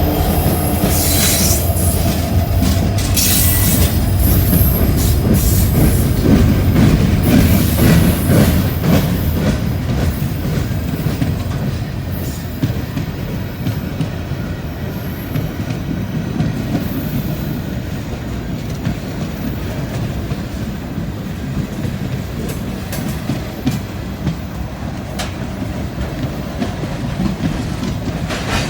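Freight train rolling past: a heavy low rumble that is strongest for the first ten seconds or so and then eases off, with the wheels clicking over rail joints and some squealing.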